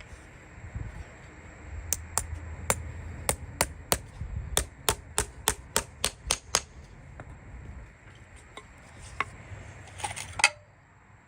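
Farrier's hammer tapping: a quick, even run of sharp taps, about three a second, then a few scattered knocks and a short cluster of clicks near the end.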